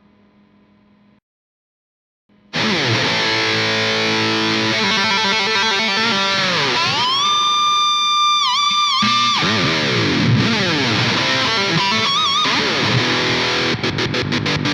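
Charvel Wildcart 8 electric guitar played through heavy distortion: a note dies away into a brief silence, then a loud solo begins about two and a half seconds in, with held notes that bend up, dip in pitch and wobble with vibrato, ending in fast, even picking.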